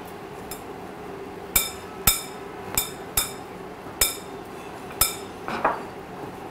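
A metal spoon clinks against a glass mixing bowl about six times, at an uneven pace, while stirring crumbly flour dough that has been wetted with boiling water.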